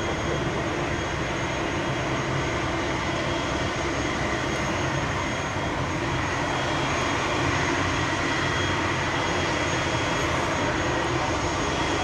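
Aircraft engine running steadily, with a faint high whine over it.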